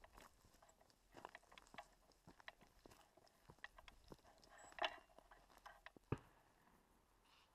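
Footsteps crunching on loose stones and dry leaves at an irregular walking pace, with scattered light clicks and scrapes. There is a louder crunch just before five seconds in and a sharp single knock about six seconds in.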